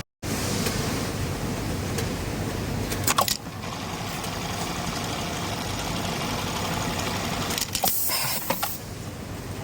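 Industrial sewing machines running in a garment factory: a steady machine din with a short burst of clatter about three seconds in and another, longer burst near the end.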